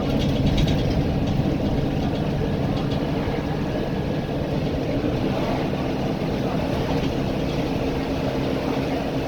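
Volvo B9TL double-decker bus's diesel engine running steadily, heard from inside the passenger cabin through a distorting phone microphone, with a constant hum and rumble.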